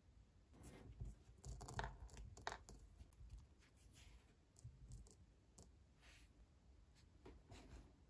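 Faint handling sounds: a plastic bag crinkling and scattered light clicks of small steel bearing balls being picked out and set into a bearing race.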